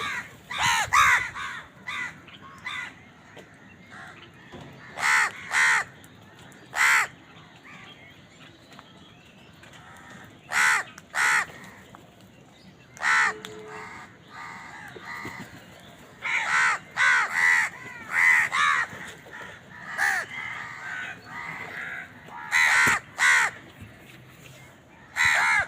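Crows cawing: short, loud caws, singly, in pairs and in quick runs of three to five, with pauses of a few seconds between.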